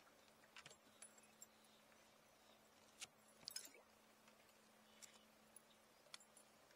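Near silence with a few faint, scattered clicks and taps.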